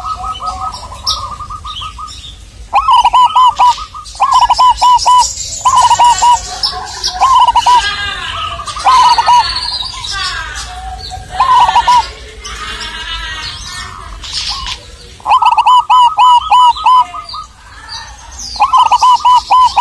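Zebra dove (perkutut) cooing: loud phrases of rapid staccato coos, each a quick run of short notes, repeated every few seconds with a pause midway. Other small birds chirp and warble behind it.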